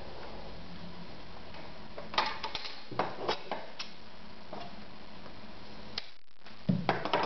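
Scattered, irregular clicks and snips of scissors trimming the thread at a sewing machine's needle, with a duller knock near the end.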